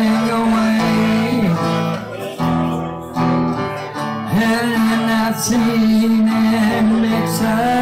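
Live acoustic performance: an acoustic guitar being strummed while a man sings long held notes that bend in pitch.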